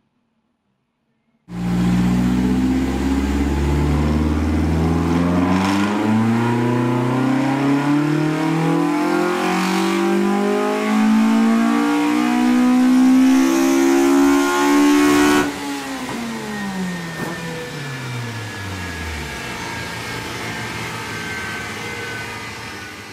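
Toyota 4A-GE twin-cam four-cylinder with individual throttle bodies making a full-throttle dyno pull, its revs climbing steadily for about fourteen seconds. The throttle then shuts suddenly and the revs fall away as the engine and rollers coast down, with a faint whine falling in pitch.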